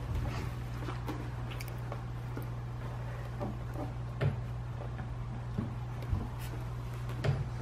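Two-week-old Portuguese water dog puppies making faint, short squeaks and whimpers as they crawl about, with a few soft thumps, over a steady low hum.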